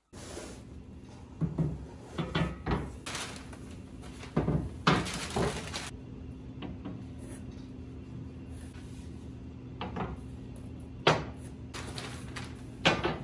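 Cardboard box and paper packing rustling and scraping as long black metal CNC rails are lifted out, with several sharp knocks of the metal parts, the loudest about five, eleven and thirteen seconds in. A steady low hum runs underneath.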